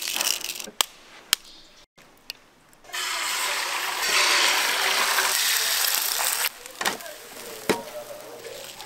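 Beaten egg poured onto a hot flat griddle, sizzling loudly for about three and a half seconds, then dropping to a quieter sizzle. A few sharp clicks come before it and near the end.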